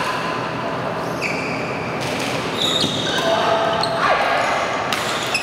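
A badminton doubles rally: rackets striking the shuttlecock in several sharp hits, with court shoes squeaking on the synthetic court mat, echoing in a large hall.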